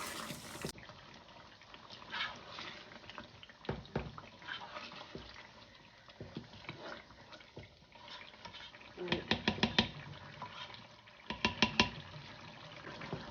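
Kitchen work at the stove or counter: scattered knocks of utensils, then two short runs of rapid clicking and knocking about nine and eleven seconds in.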